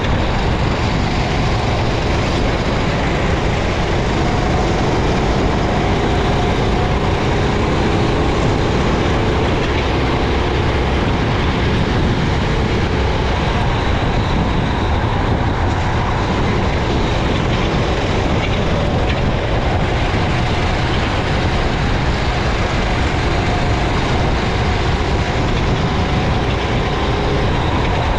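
Racing kart engine running hard, heard onboard, its pitch rising and falling as it revs through the corners, under a steady rush of wind and wet-track noise.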